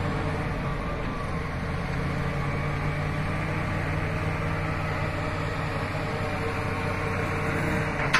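Bulldozer's diesel engine running steadily, with a short knock near the end.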